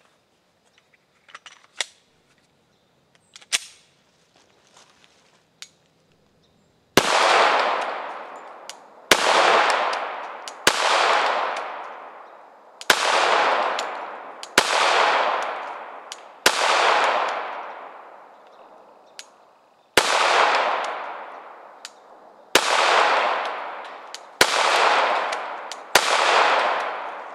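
Glock 21 Gen4 .45 ACP pistol firing ten shots at an unhurried, uneven pace, each shot trailing off in a long echo. A few light handling clicks come before the first shot.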